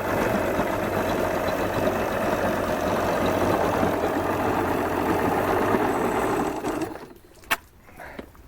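1989 Suzuki 30 hp three-cylinder two-stroke outboard running steadily, firing on all three cylinders now that its faulty fuel pump has been replaced. It shuts off abruptly about seven seconds in, followed by a single sharp click.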